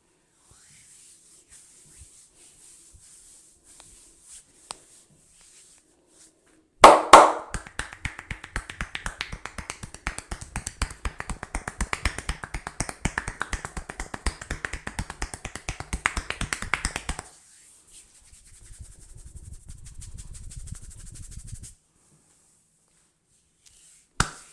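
Barber's hands striking during a percussive head massage: two sharp cracks, then about ten seconds of fast rhythmic strikes, then a few seconds of softer, quicker rubbing, and one more sharp crack near the end.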